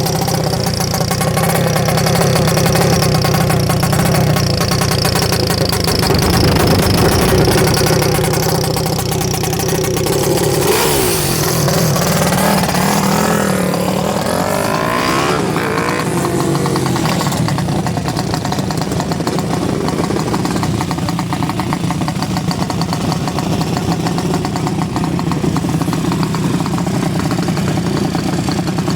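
Small-displacement racing motorcycle engine running steadily, revved up and down a few times about halfway through, then settling back to a steady run.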